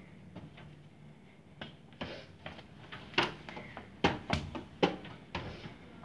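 A run of sharp clicks and knocks, about a dozen, coming thick and loud in the middle seconds and thinning out near the end.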